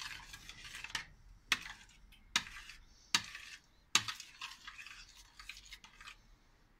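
A metal spoon stirring thick tomato sauce in a stainless-steel pot, scraping softly. Four sharp clinks of the spoon against the pot come about a second apart in the first four seconds.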